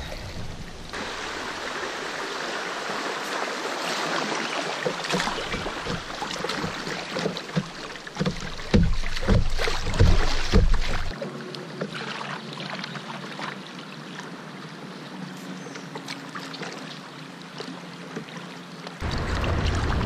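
Water rushing and splashing around a kayak's hull as it moves through a shallow riffle, with a series of dull knocks a little before halfway through.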